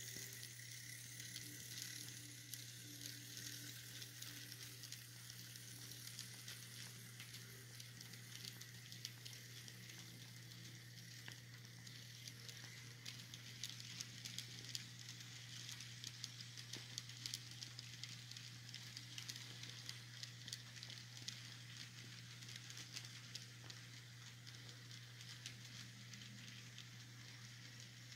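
Model passenger train rolling past on the layout track: a faint steady hiss with many small ticks of the wheels over the rail joints, over a steady low hum.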